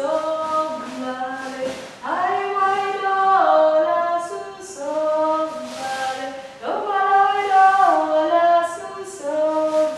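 Unaccompanied singing: slow phrases of held notes that step downward from note to note, new phrases starting about two seconds in and again about two-thirds of the way through, with short hissing consonants between.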